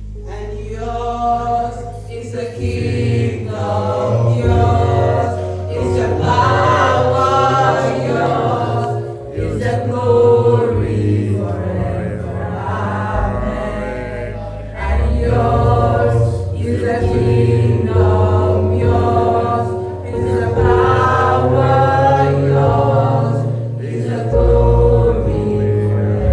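Music: a choir singing a gospel song over low bass notes that change every second or two.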